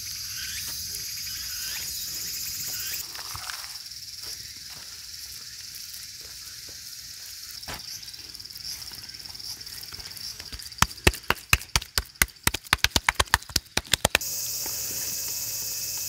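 Steady high chirring of crickets and other insects. About eleven seconds in, a rapid run of some twenty sharp knocks lasting about three seconds, the loudest sound here.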